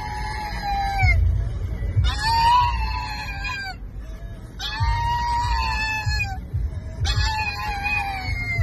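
Pug howling in long, high wails, one after another with short pauses between, over the low rumble of the car.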